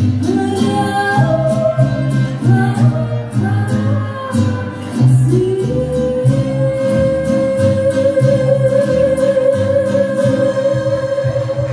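Music: a song with singing over a bass line and a steady beat, with one long held note from about halfway through.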